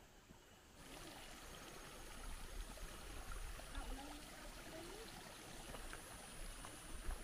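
Steady rush of flowing river water with a high, even hiss over it. It comes in suddenly about a second in, and there are a few light knocks near the end.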